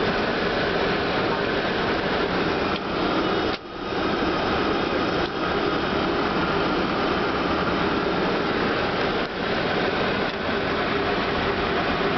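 Steady rushing cabin noise in an Airbus A319 cockpit in flight on approach: air and machinery noise with no distinct tones. It dips briefly about three and a half seconds in.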